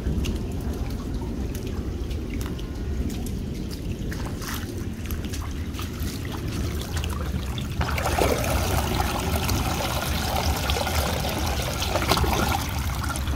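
Floodwater running off into a terrace floor drain that had been clogged; the water sound gets louder and fuller about eight seconds in.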